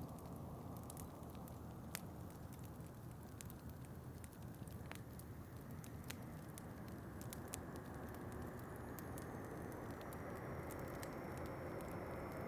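Wood fire crackling in a fireplace, with frequent small sharp pops, over a steady low rush of wind that swells a little near the end.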